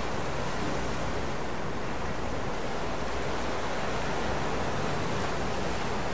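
Steady rushing noise of wind and choppy water, with a low rumble underneath.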